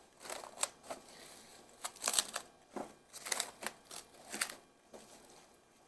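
Plastic cling wrap crinkling as it is pressed and smoothed around the rim of a glass bowl, in several short crackles.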